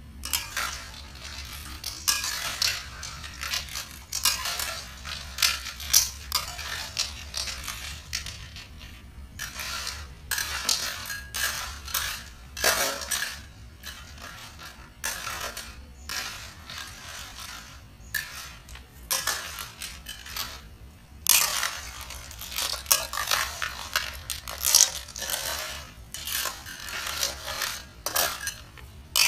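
Shells and utensils clicking and clinking against dishes, in a busy irregular run of short sharp knocks over a low steady hum.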